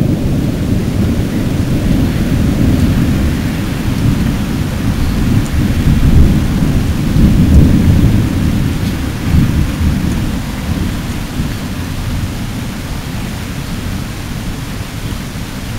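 Deep, continuous rumbling of distant fireworks and celebratory shots, booms blurring into one rolling rumble. It swells about halfway through and fades gradually toward the end.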